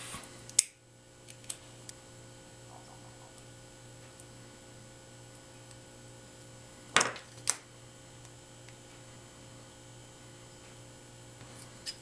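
A single sharp snip of scissors cutting a strip off the end of an HDMI cable about half a second in, then a few small clicks and two sharper clicks about seven seconds in as the cable is handled, over a steady low electrical hum.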